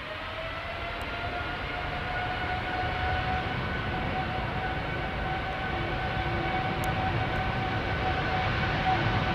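Boeing 777-300 jet engines spooling up as thrust is increased. A whine rises in pitch over the first couple of seconds and then holds steady, while the engine roar keeps growing louder.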